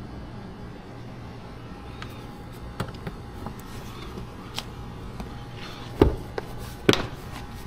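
Light clicks and taps of tools and parts being handled during a car trim job, with two sharper knocks about six and seven seconds in, over a low steady hum.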